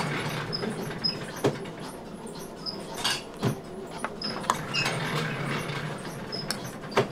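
Bakery workroom sounds: a few sharp knocks and taps over a low, steady machine hum. Short, high chirping squeaks recur every second or so.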